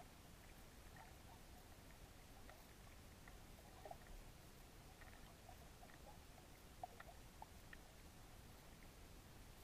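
Near silence underwater: a faint low rumble with a few faint, short ticks scattered through it.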